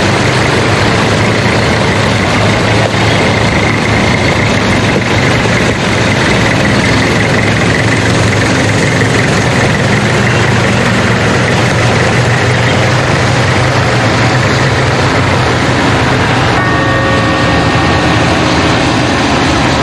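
Car engine running steadily as the car drives along. A held tone joins near the end.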